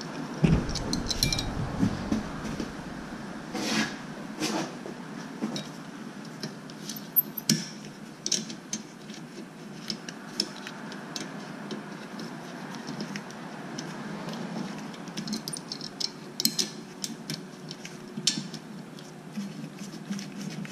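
Scattered light metallic clinks and taps of a 12 mm bolt and brake hardware being handled and fitted by hand at a car's rear brake caliper, with a few duller knocks in the first couple of seconds.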